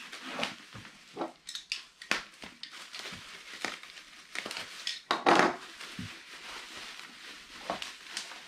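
Bubble wrap and plastic packaging crinkling and rustling in irregular crackles as a router is worked out of it by hand, with a louder burst about five seconds in.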